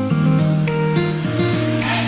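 Background music with sustained guitar-like chords; the beat drops out briefly.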